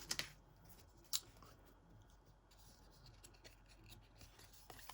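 Near-silent handling of a freshly opened pack of baseball cards: a wrapper crinkle that dies away at the start, one sharp click about a second in, then a few faint ticks and rustles.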